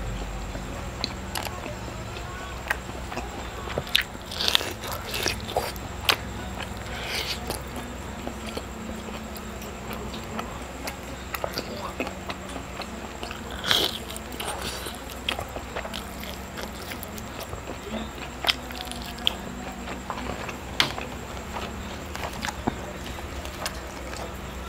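Close-miked chewing and biting of juicy grilled marinated lamb: wet mouth sounds with irregular sharp clicks, a few louder ones scattered through.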